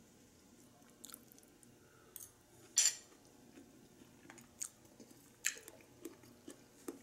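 A person chewing a mouthful of cooked yellow crookneck squash, with soft, irregular wet mouth clicks and smacks. There is one sharper, louder click a little under three seconds in.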